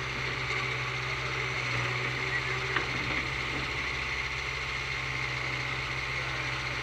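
Backhoe loader's diesel engine running steadily, with one sharp click about three seconds in.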